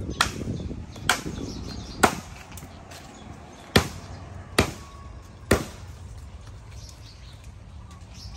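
A machete chopping into the base of a small tree trunk: three sharp strikes about a second apart, a short pause, then three more.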